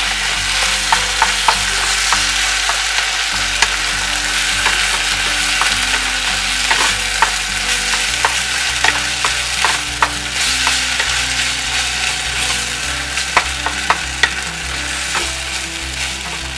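Cream-style sweetcorn and mushrooms sizzling in a hot nonstick frying pan while a wooden spatula stirs them. The spatula's scrapes and taps on the pan come through as frequent short clicks over a steady sizzle.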